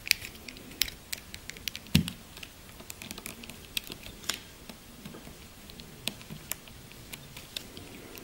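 Light, irregular plastic clicks and taps of a NECA RoboCop action figure being handled, its legs and arms moved at the joints. The two loudest knocks come at the start and about two seconds in.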